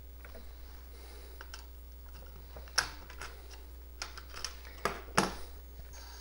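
Key presses on a Coleco Adam computer keyboard: scattered clicks, with a few louder sharp clacks about three seconds and five seconds in.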